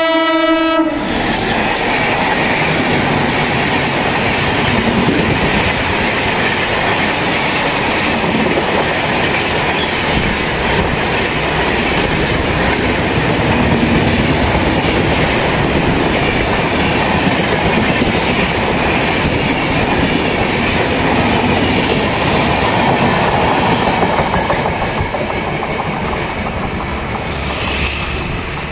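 A WAG-9 electric locomotive's horn cuts off about a second in, then its train of LHB passenger coaches runs past at speed, a loud steady rumble with the wheels clattering over the rail joints. The sound eases a little near the end as the last coaches draw away.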